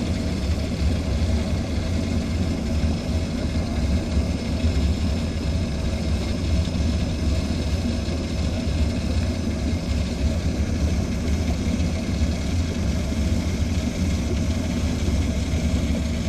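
A motor vehicle's engine running steadily: a constant low drone that does not change speed.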